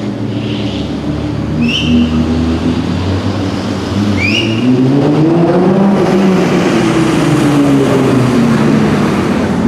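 Nissan GT-R engine running, revving up about halfway through with its pitch climbing and then easing back down. A few short high-pitched chirps sound in the first half.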